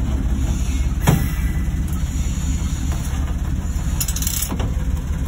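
Diesel locomotive engine running steadily, heard from inside the cab as an even low throb. A single sharp knock comes about a second in, and a brief hiss about four seconds in.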